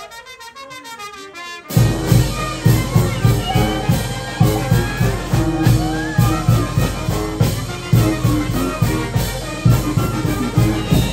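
Oaxacan village brass band playing a son or jarabe: trumpets and trombones over a strong, regular bass beat. After a quieter start, the full band comes in loudly about two seconds in.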